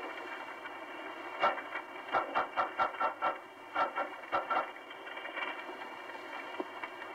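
Hiss of the Apollo 10 onboard cabin tape recording, narrow-band like an old voice recording, with faint steady tones running through it. A string of short sharp clicks comes through in the middle, half a dozen quick ones about a fifth of a second apart, then a few more.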